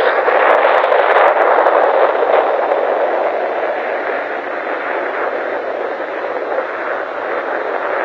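Fighter jet engine running at full power on takeoff, a steady roar on old, narrow-sounding film audio that slowly eases as the aircraft climbs away, with a few faint crackles near the start.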